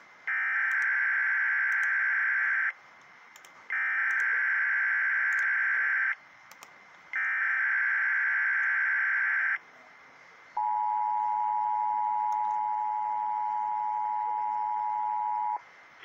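Emergency Alert System weekly test on NOAA Weather Radio: three bursts of the SAME digital header, each about two and a half seconds with a second's gap between, followed by the steady single-pitch 1050 Hz warning alarm tone held for about five seconds and cut off sharply.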